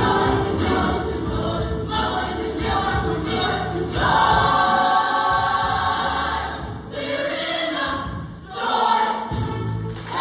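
Show choir singing the closing section of a number with accompaniment, the full group on sustained chords, with a brief drop about eight and a half seconds in before the final chord.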